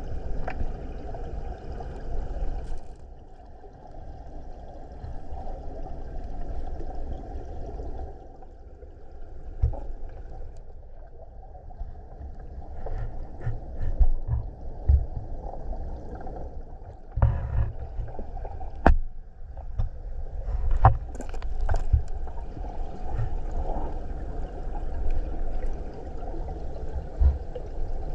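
Muffled sloshing and churning water, deep and dull, with scattered sharp knocks that come more often in the second half.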